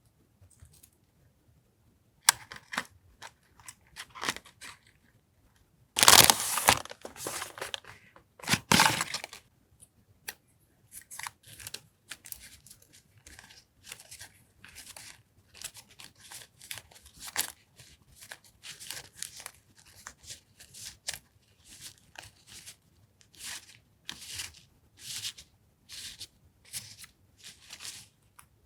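Paper and plastic packaging being handled, crinkled and torn open in irregular short rustles, loudest in two longer bursts about six and nine seconds in.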